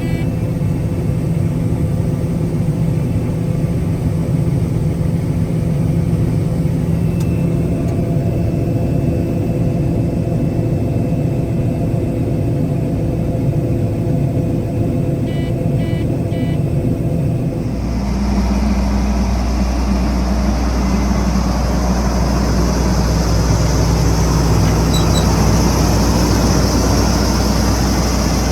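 Combine harvester running steadily, heard from the cab, with three short high warning beeps about halfway through. The operator links the beeping to the machine needing fuel. About two-thirds of the way in, the drone changes abruptly to a steadier, hissier sound with a deeper hum.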